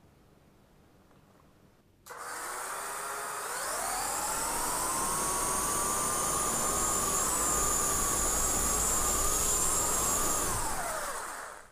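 Lego electric motors driving a homemade drone's propellers: switched on about two seconds in with a rushing whir and a whine that rises in pitch as they spin up. They hold speed with a slightly wavering whine, then die away near the end.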